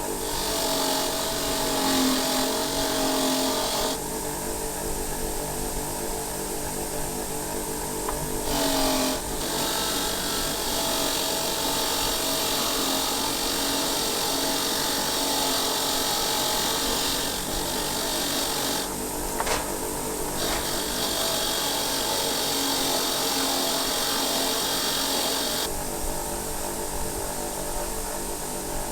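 Electric power tool running steadily, with a scratchy abrasive hiss coming and going in spells of a few seconds as it scrubs; the motor's pitch dips briefly about nine seconds in.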